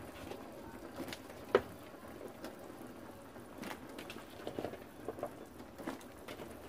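Curry simmering in a pot, with scattered small bubbling pops and a few sharp clicks, the loudest about a second and a half in.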